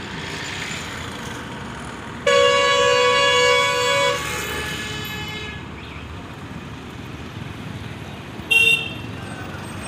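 A road vehicle's horn sounds one long blast of nearly two seconds, then a short toot near the end, over the steady hum of passing traffic.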